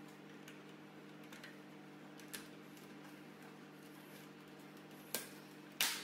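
Plastic housing parts of a De'Longhi Nespresso coffee machine clicking as they are fitted and pressed back together: a faint click about two seconds in, then two sharper clicks near the end, the last the loudest. A low, steady hum runs underneath.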